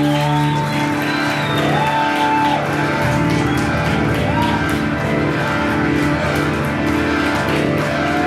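Live instrumental band music: an electric organ and bass guitar hold low sustained notes while swooping pitch glides repeat above them, rising and falling several times.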